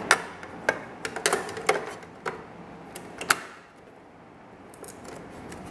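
Chrome plastic mirror cap clicking and knocking against the housing of a 2019-on Chevy Silverado/GMC Sierra side mirror as it is hooked on and pressed into place. About eight sharp clicks come in the first three seconds or so, then only quiet handling.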